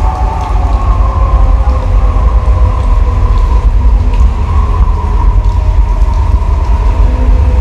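Loud, deep rumbling bass drone over a PA sound system, with sustained, slowly wavering tones above it, like the sound design of a show intro.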